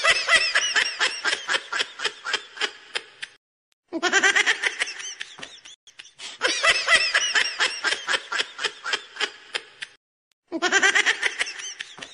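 Laughter sound effect: bursts of rapid giggling that start loud and fade away, repeated about four times with short pauses between them.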